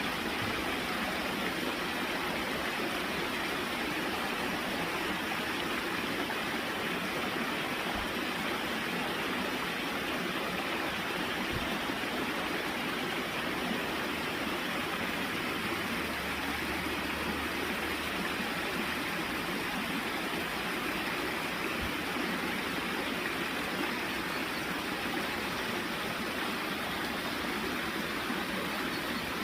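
Running water with a steady, unbroken rush.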